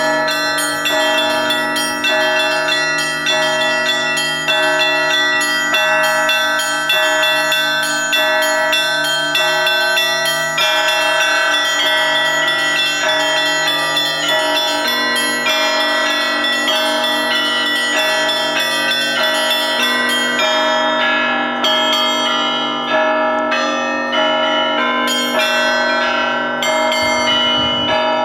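Russian Orthodox church bells rung together in a fast, rhythmic peal: small bells are struck over and over above the longer hum of larger bells. In the last few seconds the lowest hum drops away.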